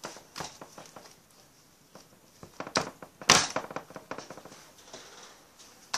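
Hands pressing and slapping soft bread dough onto a metal baking tray: dull thumps and knocks, three of them sharper, the loudest a little over three seconds in, with lighter taps between.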